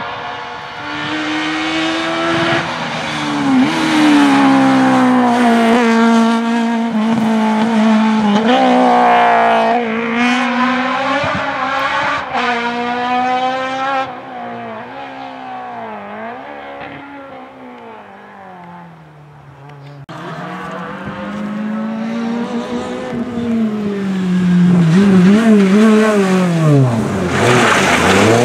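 Rally car engines at full throttle on a special stage, one car after another. The revs climb and drop back with each gear change and lift-off, and the sound is loudest as each car passes close.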